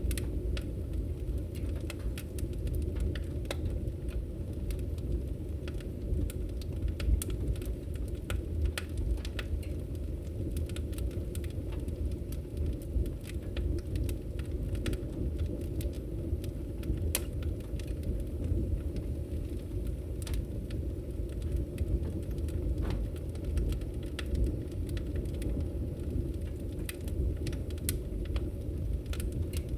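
Fire crackling: a steady low rumble of burning with frequent, irregular sharp pops and snaps.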